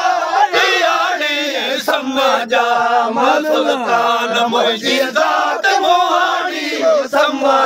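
Several men singing a Sindhi Raag Kafi together in the Raagi faqeer style, without instruments: long, slowly bending sung lines over a steady low held note.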